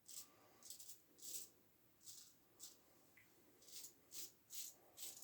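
Faint short scrapes of a Gem single-edge safety razor cutting through lathered stubble, about ten quick strokes at an uneven pace.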